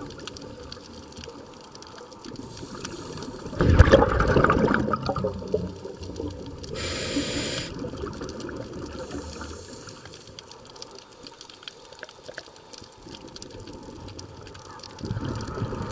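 Scuba diver breathing through a regulator underwater: a loud rush of exhaled bubbles about four seconds in, a short high hiss a few seconds later, and another rush of bubbles near the end.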